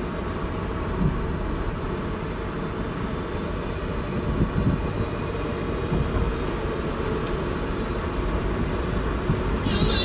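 Car driving along a road, heard from inside the cabin: a steady low rumble of road and engine noise.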